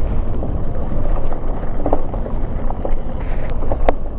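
Wind buffeting the microphone of a moving electric bike, with its tyres rolling over a gravel road and no engine sound. A few sharp clicks break through, the clearest two near the end.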